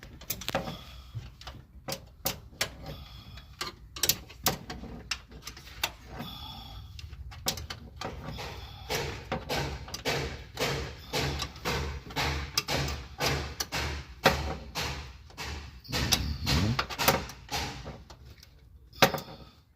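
Repeated clicks, knocks and clanks of hand tools and metal parts being worked on a car, with a stretch of fairly even strikes about twice a second in the middle.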